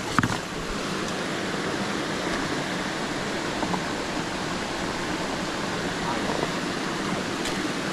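Small creek cascade spilling into a pool: a steady, even rush of water.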